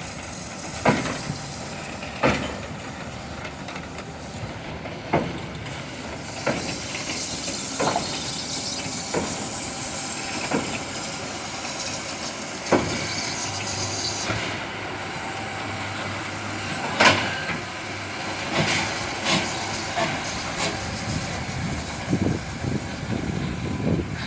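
Steam locomotive 16.27 hissing steadily, with sharp knocks about every second and a half. In the second half the knocks come louder and closer together, the loudest about two-thirds of the way in.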